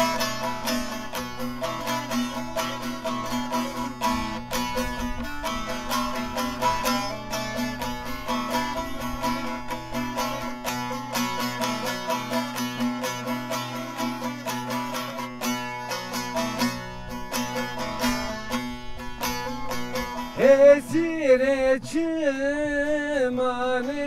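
Bağlama (long-necked saz) played solo in quick plucked notes over a steady low ringing note. About twenty seconds in, a man's voice comes in singing a Zazaki folk song over the saz.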